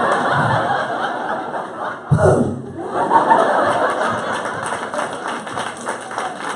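Audience laughing, with a sudden loud burst about two seconds in.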